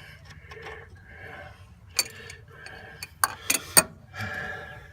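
Socket wrench and tools clicking and clinking against metal while working a starter motor bolt loose, with several sharp metallic clicks in the second half over light handling noise.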